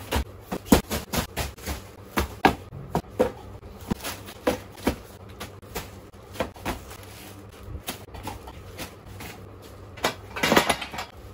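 Parcels, cardboard boxes and plastic mailer bags, set down one after another onto a pile: a quick, irregular run of knocks and thuds. A louder, busier burst of handling comes about ten and a half seconds in.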